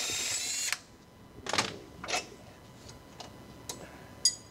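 Cordless power tool spinning out a steering-rack mounting bolt against an open-end wrench holding the nut, stopping under a second in. Then a few light clicks and taps of tools and hardware, and a sharp metallic clink near the end.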